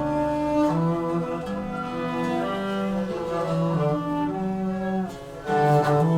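Instrumental passage of a small acoustic band led by bowed viola over bass, with long held notes that change pitch every second or so. There is a brief lull about five seconds in, then a new phrase enters more strongly.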